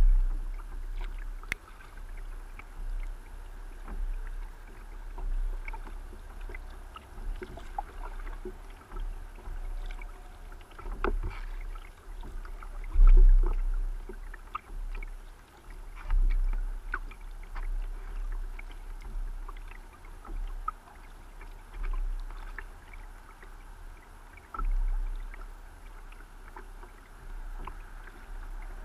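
Kayak paddling on calm river water: paddle blades dipping and dripping, with small splashes and drips, and a low thump every few seconds.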